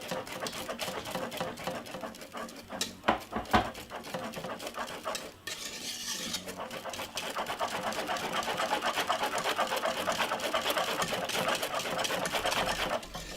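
Thick cornmeal porridge being stirred briskly in a pot, the utensil scraping and tapping against the pot in quick, even strokes, with a couple of louder knocks about three seconds in.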